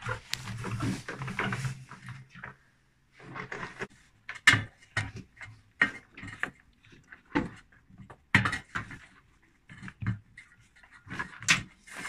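Front-loading washing machine's new rubber door seal being stretched and worked onto the tub's front rim by hand: irregular short rubbing and knocking sounds of rubber against the tub.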